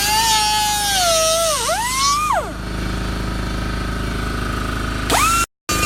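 Electric motor of a power tool whining under load, its pitch wavering. It winds down and stops a couple of seconds in, leaving a steady low hum, then spins back up quickly near the end.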